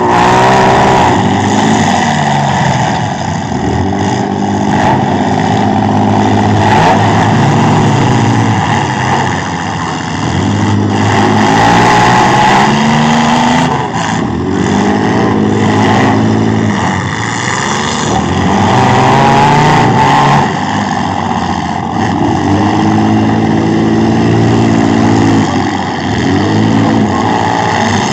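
Several demolition derby trucks and SUVs running at full throttle, their engines revving up and down over and over as they accelerate and back into hits, with a few sharp knocks of impacts in between.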